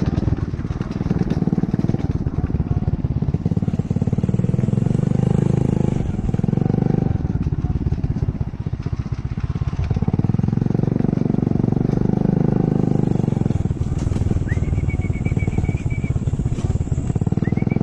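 A small engine running, its pulsing drone swelling louder and easing off several times. Two short high trills come in near the end.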